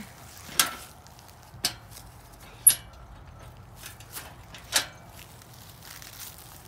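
Four sharp knocks and clanks from a red cruiser bicycle being handled among loose wooden boards, spread over a few seconds. The third knock has a brief high metallic ring.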